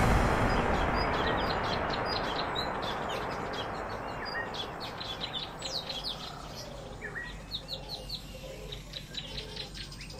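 Ducklings peeping: many short, high chirps, mostly falling in pitch, growing thicker from about four seconds in. Under them a loud hiss fades away over the first half.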